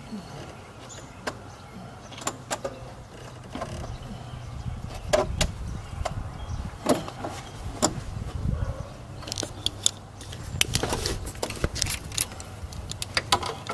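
Scattered metallic clinks and knocks of tools and parts being handled during engine teardown work, over a steady low hum. The clinks grow more frequent after about five seconds in.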